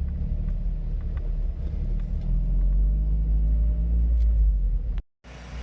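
2007 Mazda MX-5 Miata running with a steady low rumble. The sound cuts off suddenly about five seconds in and resumes quieter.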